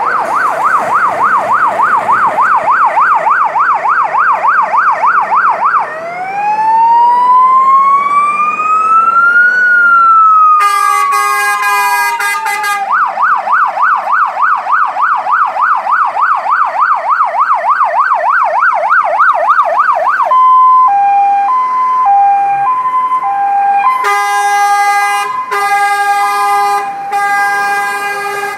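Scania fire engine's siren cycling through its tones: a fast yelp, then one slow wail rising and falling, a horn blast, the fast yelp again, then a two-tone hi-lo, with repeated horn blasts near the end.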